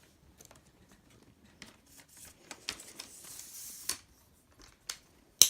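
Scattered small clicks and rustling as a tripod and its packaging are handled, with a brief hiss about three seconds in and one sharp loud snap near the end.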